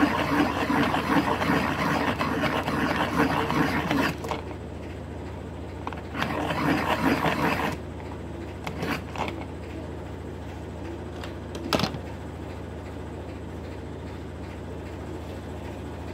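Crank pencil sharpener spun by a power drill, grinding down a pencil crayon for about four seconds, then a second shorter burst of grinding about six seconds in. A few light clicks and a short knock follow near the end.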